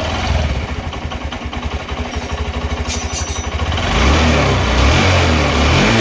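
Honda Shine BS6's 125 cc single-cylinder four-stroke engine idling with an even beat, then revved up and down from about four seconds in. It runs smoothly and sounds like a factory-fresh engine, with its timing chain newly replaced and its tensioner working properly. A short hiss comes about three seconds in.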